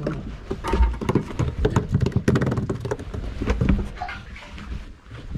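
Irregular knocks, taps and clatter on a small boat's deck as someone moves about and handles gear, with a few low thumps underneath.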